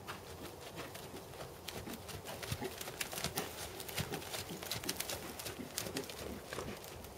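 Hoofbeats of a black Percheron/Thoroughbred gelding moving at a working gait over sand arena footing, a quick run of dull thuds that grows louder as the horse passes close.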